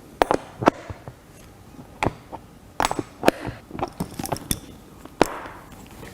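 Irregular sharp metal clicks and clinks, about ten in all, from an adjustable wrench working the bicycle saddle's clamp bolts.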